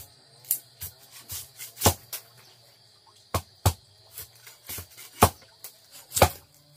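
An irregular run of sharp knocks, two or three a second, with a pause of about a second midway, over a steady high-pitched insect drone.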